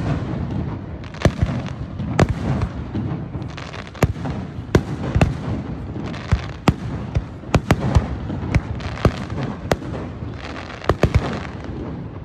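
Aerial fireworks going off: sharp bangs and crackles come several times a second, irregularly, over a continuous low rumble of bursting shells.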